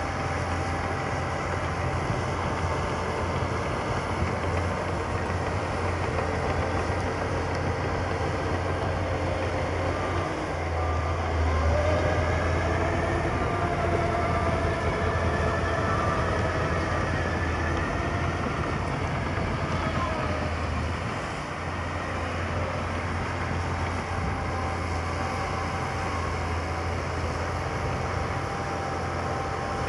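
Diesel engines of heavy earthmoving machinery running steadily with a deep, constant engine note. The engines grow louder about twelve seconds in, a faint wavering whine rides over them around the middle, and they ease briefly around twenty-one seconds.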